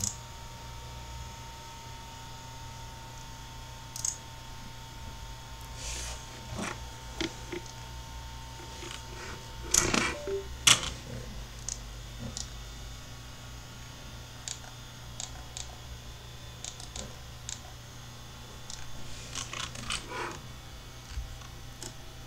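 Scattered sharp clicks and light taps from a computer mouse and handling at the desk, over a steady low hum. The loudest cluster of clicks comes about ten seconds in, with another group near the end.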